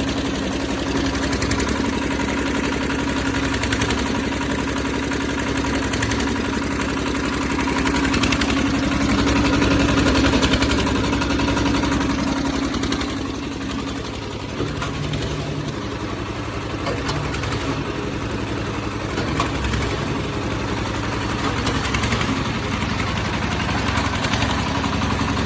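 Diesel engine of a Phoenix concrete pump running steadily at light throttle. It swells a little about a third of the way in, then settles slightly quieter.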